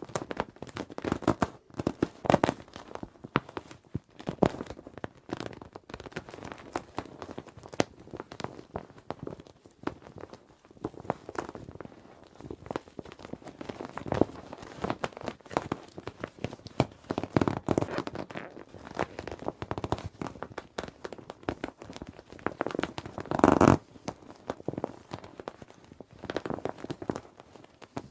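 Children's inflatable plastic swim ring being handled and squeezed: irregular crinkling and rustling of the plastic, with a louder scrunch near the end.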